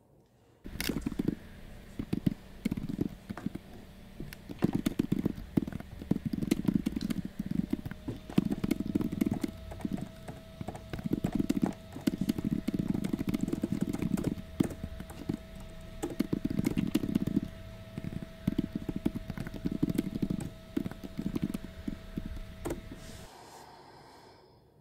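Typing on a computer keyboard: rapid, irregular key clicks in bursts, over a steady hum. It stops suddenly near the end.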